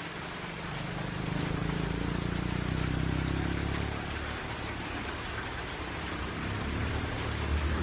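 An engine's low hum swells about a second in and fades about four seconds in. A deeper hum builds near the end. A steady hiss runs underneath throughout.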